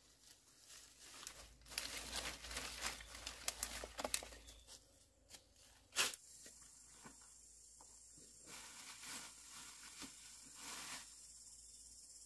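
Dry grass and undergrowth rustling and crackling as it is grabbed and torn up by hand, densest in the first few seconds, then softer scattered rustles.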